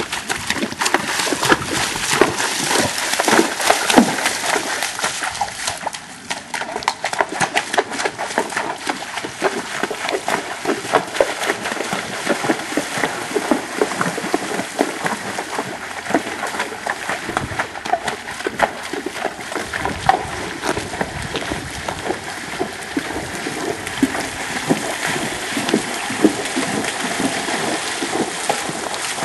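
A spotted saddle horse's hooves on a leaf-covered creek bank, then splashing steadily through shallow creek water as it walks through, a continuous run of irregular splashes and sloshes.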